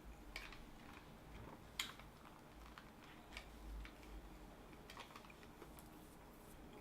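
Faint chewing of a sandwich, heard as scattered soft mouth clicks, the sharpest about two seconds in.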